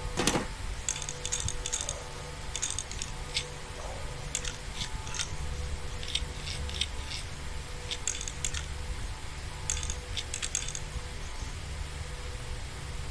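Small metallic clicks and ticks in quick clusters, with a single thump at the start, as PC hardware is handled and fitted during the power-supply installation.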